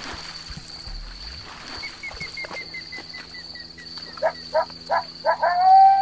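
Wild animal calling: a series of short, loud yelps about four seconds in, running into one long, steady-pitched call near the end. A faint run of quick, falling chirps comes about two seconds in.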